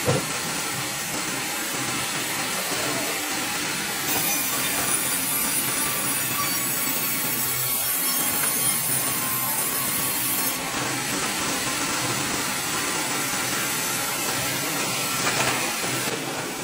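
Sawmill band saw blade cutting lengthwise through a pine log on a log carriage: a steady, unbroken sawing noise with the machinery running under it.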